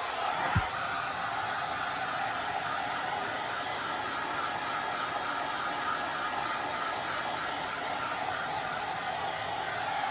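Hand-held hair dryer blowing steadily while drying a cat's fur. A brief low thump comes about half a second in.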